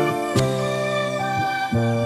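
Background music: held, sustained chords that change a few times.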